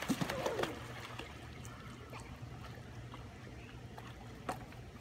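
Pool water lapping and splashing gently as children swim.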